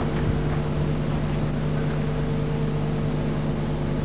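Hushed snooker-arena room tone between shots: a steady low hum with an even hiss, and no cue or ball clicks.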